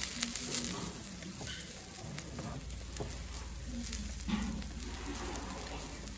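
Venison sizzling steadily on a hot iron griddle plate, with a few light clicks.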